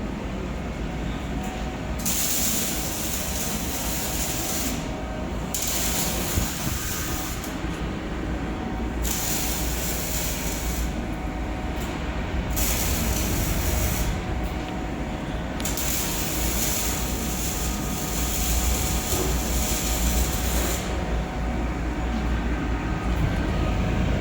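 A handheld laser welder firing in five separate passes, each a sharp-edged stretch of hiss that starts and stops with the trigger; the last pass is the longest. Under it runs a steady low hum.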